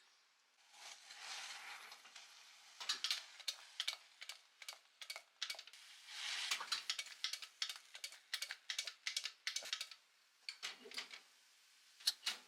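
Kitchen work sounds: irregular light taps and clicks of utensils and dishes, with two stretches of soft rustling or scraping, about a second in and again around six seconds.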